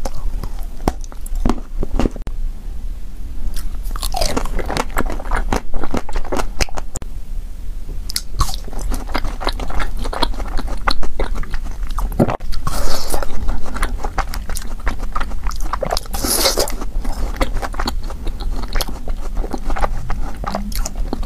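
Close-miked eating of frozen ice cream bars: crisp bites and crunches into the frozen bars, with wet chewing between them and several louder crunches spread through.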